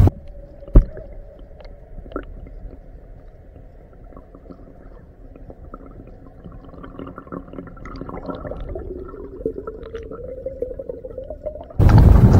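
Muffled underwater sound from a camera submerged in the lake: a sharp thump about a second in, then faint gurgling and small knocks, with a low hum that rises slowly in pitch over the last few seconds.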